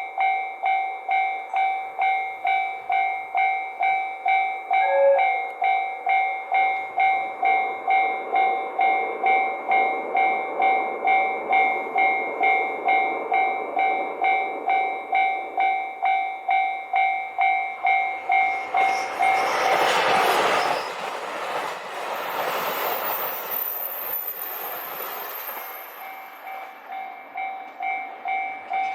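Japanese railroad crossing alarm dinging steadily about twice a second. A short train horn toot comes about five seconds in. From about 19 to 26 seconds a train rushes past over the crossing, drowning out the bell, with a thin high squeal near the end of the pass before the dinging returns.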